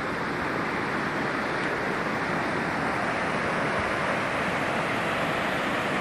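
Steady rush of mountain creek waterfalls, an even wash of water noise that grows slightly louder.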